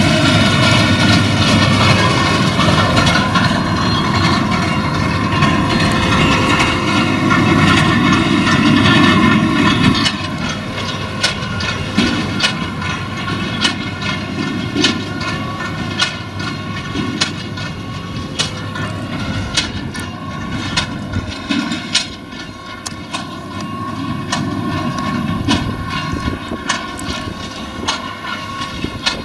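Claas Quadrant 2200 large square baler working straw behind a Claas tractor: a steady engine and drivetrain hum, with the baler knocking about once a second. The sound drops suddenly in level about ten seconds in.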